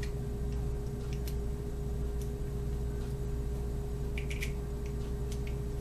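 Faint, irregular small clicks and ticks of metal e-cigarette mod parts being unscrewed and handled, a few bunched together about four seconds in, over a steady hum.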